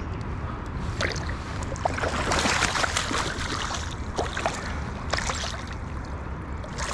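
Shallow river water splashing and sloshing as a large barbel, set down from the hand, moves in the shallows. The splashing comes in bursts, loudest about two to three and a half seconds in and again near five seconds.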